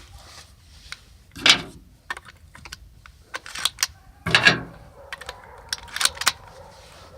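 12-gauge shotgun being handled and loaded with slugs: a series of sharp metallic clicks and clacks, with two louder clacks about one and a half and four and a half seconds in.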